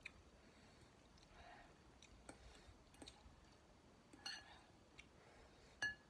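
Metal fork clinking against a glass bowl while stirring and twirling noodles: a few light clicks, then two louder ringing clinks, one about four seconds in and one near the end.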